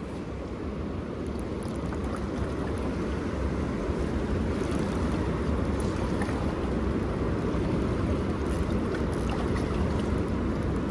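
Steady rush of fast, turbulent river water below a dam, with wind rumbling on the microphone; it swells slowly louder over the first few seconds.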